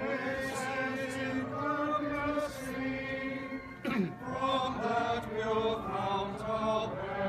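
A group of voices singing a slow processional hymn together, with long held notes. A short falling squeal cuts across about four seconds in.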